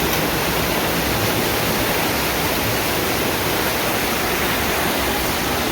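Loud, steady rush of fast-flowing floodwater, with no let-up.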